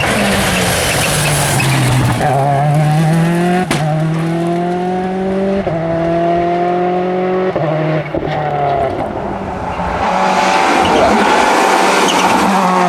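Seat Córdoba WRC rally car's turbocharged four-cylinder engine slowing for the first couple of seconds, then accelerating hard, its pitch climbing in stretches broken by quick upshifts about every two seconds. Near the end a louder rush of engine and tyre noise comes in.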